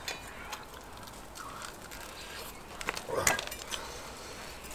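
Quiet eating sounds: a man biting and chewing roasted lamb chop meat off the bone, with small clicks and one short, louder mouth noise about three seconds in.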